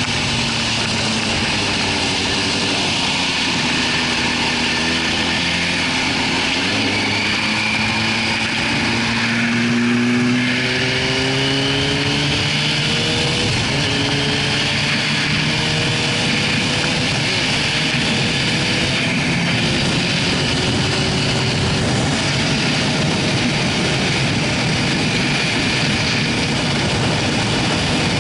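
A 2004 Yamaha YZF-R6's inline-four engine running at freeway speed under heavy wind and road rush. Its pitch climbs from about a fifth of the way in, drops once near the middle and climbs again.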